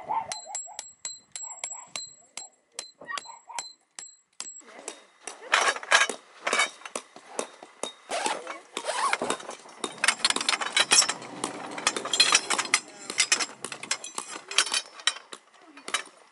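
A steel tent stake hammered into the ground with quick ringing strikes, about three a second, then steel tent poles clanking and rattling as they are pulled from their canvas bag and handled.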